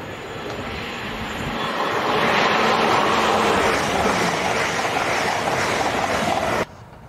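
LNER Azuma high-speed train passing close at speed: a rush of wheels on rail and air that swells over the first couple of seconds and stays loud, then cuts off suddenly near the end.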